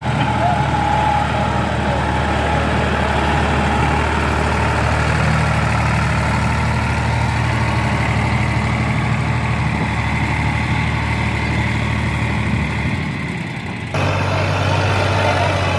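Sonalika farm tractor's diesel engine running steadily while it hauls a trailer loaded with sand. Near the end the hum dips slightly, then cuts abruptly to a steady, deeper hum.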